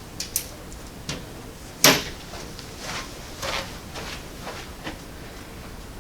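A series of short knocks and clicks at irregular intervals, with one sharp, louder knock about two seconds in.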